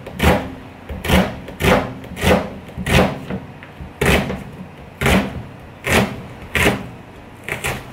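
Kitchen knife slicing a peeled onion on a plastic cutting board: about ten knocks as the blade cuts through and strikes the board, roughly one every two-thirds of a second, with a quick double near the end.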